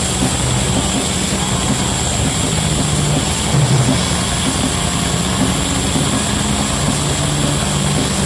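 Black metal band playing live at full volume: a dense, distorted wall of sound with held low guitar and bass notes that change every second or so.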